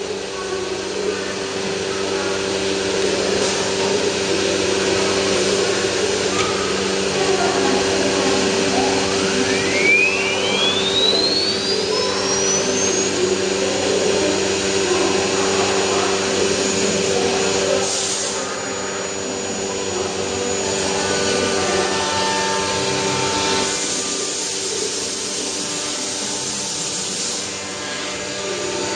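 Multi-head CNC wood router running with its dust extraction: a steady hum and rushing air, and about nine seconds in a spindle spins up with a rising whine that levels off into a steady high whine.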